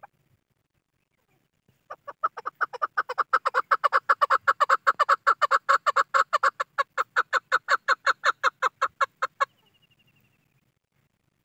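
A caged chukar partridge (chakor) calling. After a short quiet start comes a long run of rapid clucking notes, about six a second, that grows faster and louder before breaking off suddenly.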